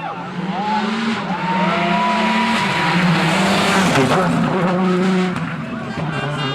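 WRC rally car's engine running hard, with tyres squealing over it in the first couple of seconds. A broad rushing noise swells through the middle and eases near the end.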